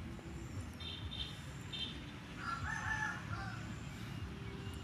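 A rooster crows once near the middle, a call about a second long. It is preceded by a few short, high chirps.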